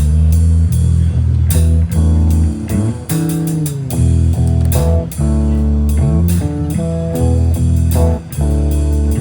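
Blues band playing the instrumental intro of a song: guitar with bent notes over a deep, sustained bass guitar line.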